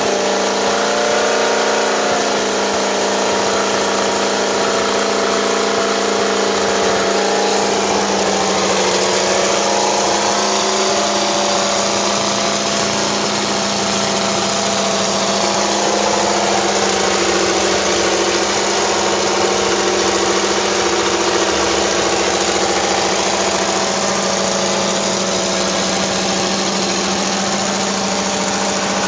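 Mercedes-Benz W196 Grand Prix car's 2.5-litre straight-eight engine idling steadily while it warms up.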